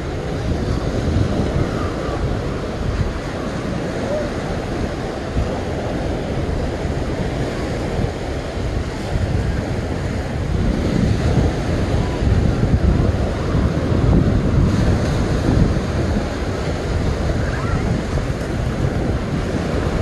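Ocean surf breaking and washing up on the beach, with wind buffeting the microphone in a steady low rumble that swells somewhat louder past the middle.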